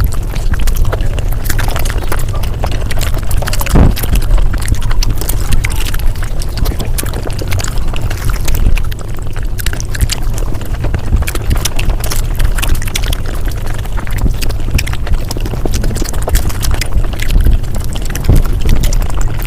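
Eating sounds from mukbang clips played back at five times speed: a dense, rapid stream of chewing clicks over a steady low rumble.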